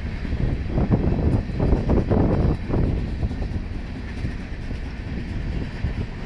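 Coal train's hopper cars rolling past with a steady low rumble, their wheels clacking over the rail joints, the clacks heaviest in the first half.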